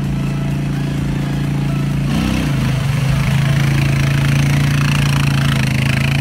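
ATV engine running steadily as the quad ploughs through floodwater, its note wavering briefly about two seconds in, with water rushing and splashing from the wheels from then on.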